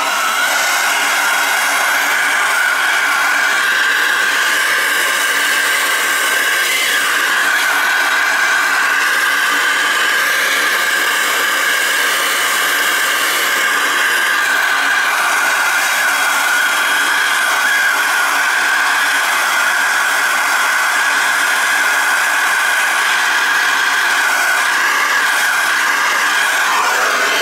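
Hose-fed plumber's torch burning with a steady hiss, its flame held on a copper pipe fitting to heat the joint for soldering. A constant high whistle runs through the hiss.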